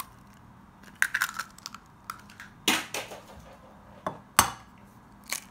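Raw eggs being cracked against the rim of a ceramic bowl: several sharp knocks and shell cracks, the loudest two close together about four seconds in.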